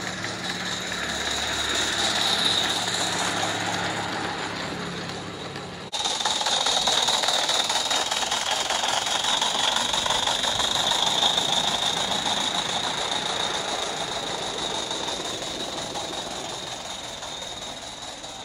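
Aster Gauge 1 live steam locomotive running with a short log train: a steady hiss with the rolling of small wheels on the rails, a low hum under it for the first six seconds. The sound changes suddenly about six seconds in, then slowly fades as the train moves away.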